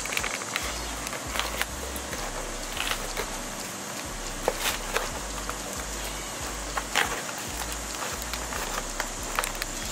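Plastic tabs of a fog-light bezel on a 2013 Ford Fusion's front bumper cover being pushed back and pried loose by hand: scattered clicks and snaps of plastic, over a steady high hiss.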